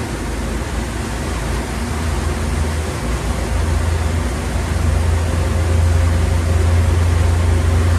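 Twin inboard engines of a Meridian 341 motor yacht running under rising throttle as the boat accelerates toward planing, from about 2,000 to 3,000 RPM. The low engine drone grows steadily louder from about three seconds in, over a constant rushing noise.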